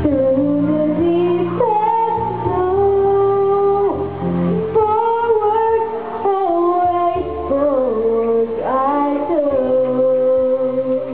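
A girl singing a slow ballad into a microphone through the hall's sound system, holding long notes with slides between them over instrumental accompaniment.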